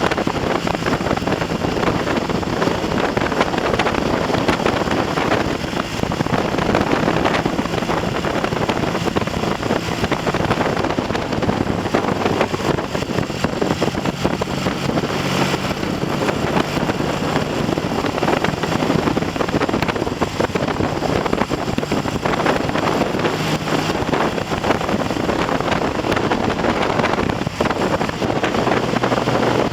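Heavy wind noise buffeting the microphone on a moving Triumph TR6 motorcycle. Underneath it, the 650 cc parallel-twin engine runs at moderate revs, and its pitch shifts a few times. The engine has been freshly rebuilt with new pistons and rings and is being run in.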